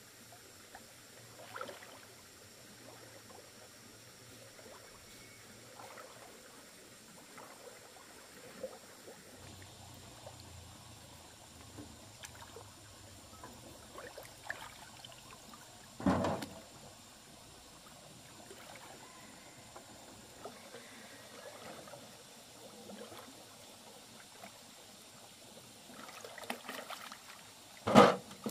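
Shallow river water lapping and trickling as hands feel through it along the bottom, with small splashes, and two sharp knocks of shells dropped against a floating aluminium basin, one about halfway and a louder one near the end.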